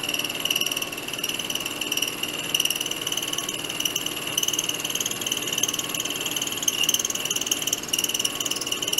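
An 11/32 in four-flute end mill cutting a slot in a metal part on a milling machine, taking a pass 20 thousandths deep: a steady, high-pitched cutting whine with a rough, buzzing edge.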